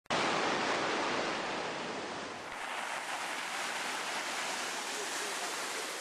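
Sea water foaming and washing: a steady rushing hiss of churning surf, loudest at first and easing a little after about two seconds.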